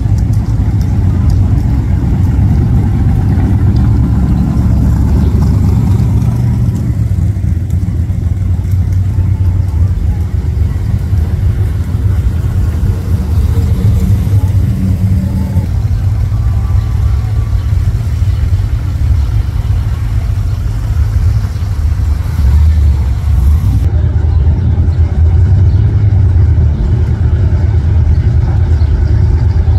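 Classic cars and hot rods cruising past at low speed, their engines running with a steady, deep rumble.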